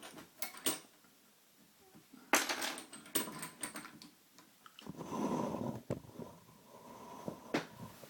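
Lock picks and a tension wrench clicking and clinking against each other and against the lock as they are handled, with a quick run of metal clicks about two to three seconds in and a rustle of handling around five seconds.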